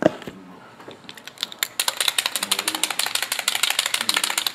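A sharp click, then from about a second in a rapid, even run of ratchet-like clicks, about a dozen a second, lasting roughly three seconds.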